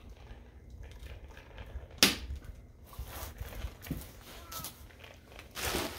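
Handling and fitting together the parts of a wagon stroller: a sharp snap about two seconds in, then scattered light knocks and rustling.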